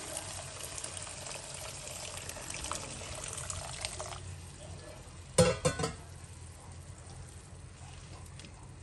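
Chicken stock poured in a steady stream into a wok, a trickling pour that stops about four seconds in. A short, loud clatter of knocks follows a little after five seconds.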